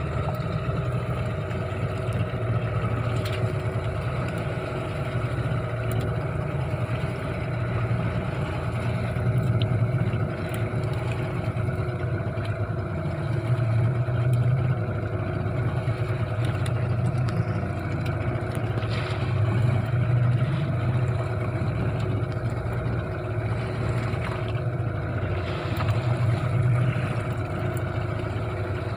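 Motor of a small fishing boat running steadily under way while trolling. It swells in loudness every few seconds.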